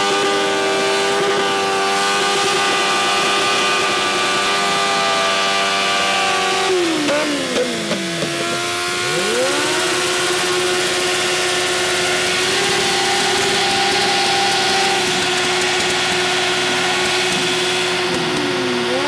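Suzuki GSX-R sportbike's oil-cooled inline-four engine held at high revs to warm it up. About seven seconds in the revs drop steeply and climb back within two seconds, and they dip briefly again near the end.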